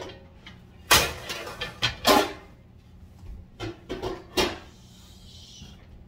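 Dishes and kitchenware knocking and clattering as they are handled and taken out of kitchen cabinets, several sharp knocks with the loudest about one and two seconds in, then a brief hiss near the end.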